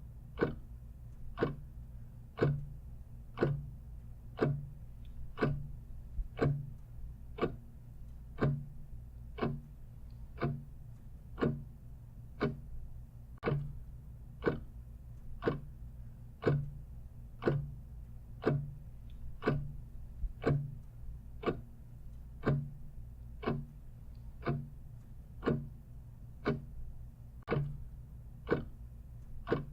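Clock ticking steadily at about two ticks a second in an even tick-tock, over a faint low hum.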